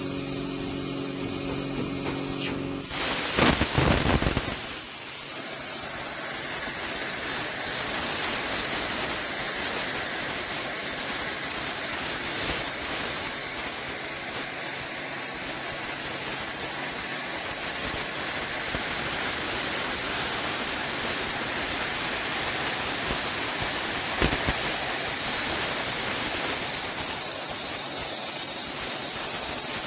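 Plasma cutter torch firing on a CNC plasma table: a click as the arc strikes about three seconds in, then a steady loud hiss of the cutting arc and air that runs on through the cut.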